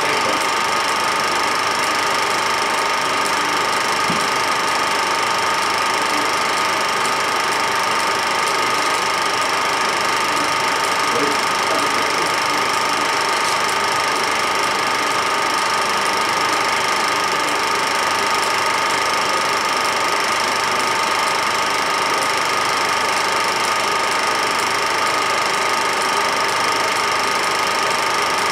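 A machine running steadily, with an even hiss and a few constant high tones that do not change at all.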